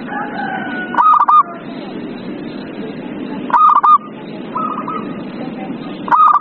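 Zebra dove (perkutut) cooing: a short phrase of rapid rolling notes, given three times about two and a half seconds apart, over a steady low background noise.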